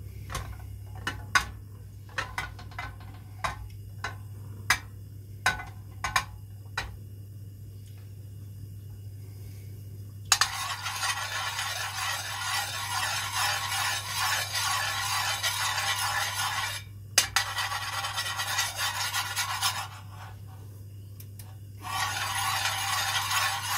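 A metal chef spoon knocks and taps a dozen times against an aluminium pan. About ten seconds in, it starts scraping and stirring melting ghee around the pan in a steady scraping noise. The scraping stops briefly once and then for a couple of seconds before going on again, over a constant low hum.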